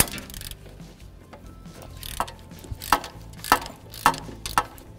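Hand ratchet clicking in short back-and-forth strokes as a 12 mm swivel socket on an extension loosens a car alternator's rear mounting bolt. There is a sharp click at the start, then strokes about every half second from about two seconds in.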